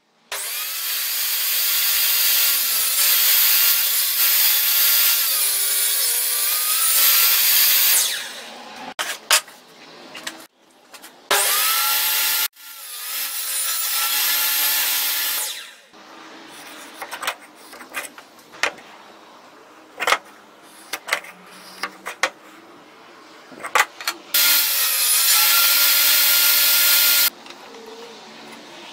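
Power saw cutting wood in several long passes, its whine dipping in pitch now and then, with sharp knocks and clatter of wood and tools being handled between cuts.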